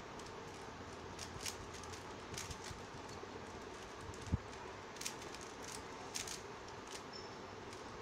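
Plastic clicks and clacks of a stickerless 3x3 Rubik's cube, its layers turned quickly by hand in short irregular flurries. A single dull thump comes a little after four seconds in and is the loudest sound.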